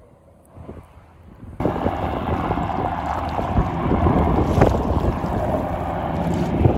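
Wind buffeting the microphone on a kayak out on the water, with water splashing around the boat. It starts suddenly about a second and a half in, after a quieter opening.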